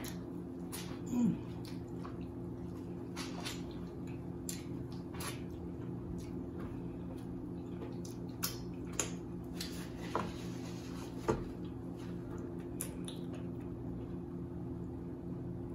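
Close-up eating sounds: wet smacks and squishy chewing of corn on the cob, with one louder sound about a second in and a few sharper smacks later, over a steady low hum.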